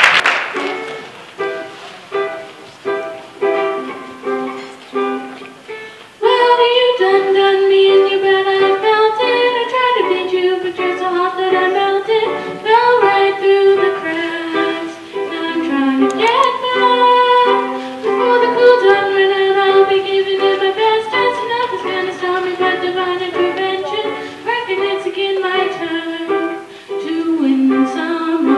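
Live acoustic song: a ukulele plays plucked notes alone for about six seconds, then female voices come in singing over the ukulele and band.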